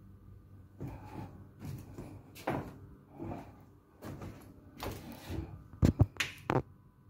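Footsteps on a metal floor grating, roughly one step every second, with a few sharper louder knocks around six seconds in. A faint steady hum runs underneath.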